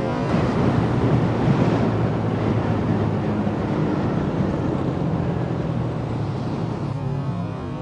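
Honda CB150R's single-cylinder four-stroke engine running steadily under way, with wind rushing over the camera microphone. Background music comes in near the end.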